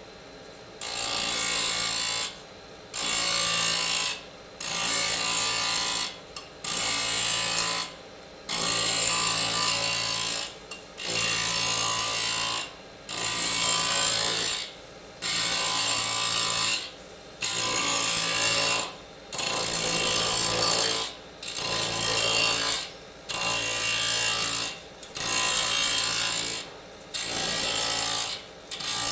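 Disk saw cutting aluminium in repeated short passes, about one every two seconds. Each cut is a high-pitched screech lasting a second or two, with brief pauses between.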